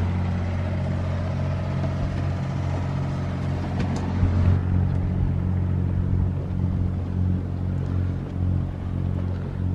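A boat's inboard generator running: a steady, deep droning hum.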